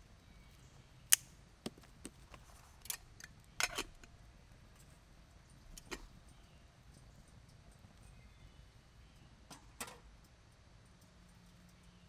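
Twig fire in a small folding wood-burning stove, crackling with scattered sharp pops, the loudest about a second in. Near the end, a clink as a titanium kettle is set on the stove.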